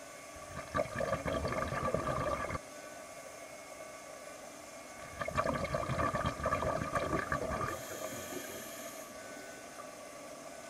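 Scuba diver's exhaled breath bubbling out of the regulator underwater: two bursts of bubbling, each about two seconds long, the first shortly after the start and the second in the middle. A short high hiss of the regulator follows the second burst, over a steady faint hiss.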